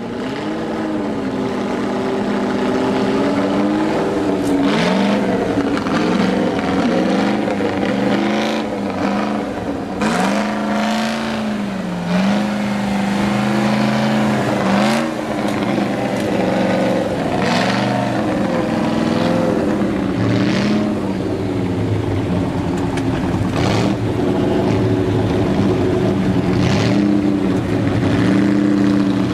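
Tatra 805 truck's air-cooled V8 engine revving up and down over and over as it crawls over steep rough ground, with several sharp knocks through the engine note.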